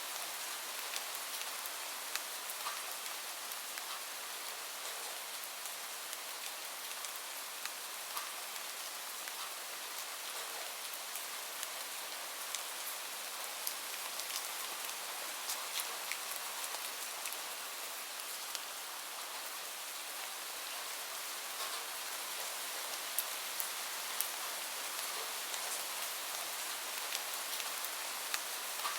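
Steady rain falling, a dense even hiss with many individual drops ticking sharply against a surface.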